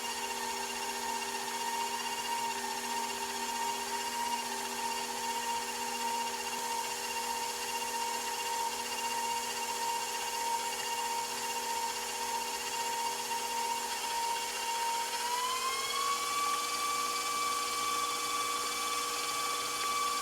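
KitchenAid stand mixer running steadily, its motor whining as it creams softened butter and cream cheese; about fifteen seconds in the whine rises a step in pitch and holds there.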